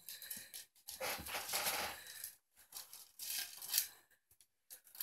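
Bolonka Zwetna puppies scrabbling and moving about on a hard floor: scratchy, rustling noise with small clicks, coming in three bursts and then a few faint ticks.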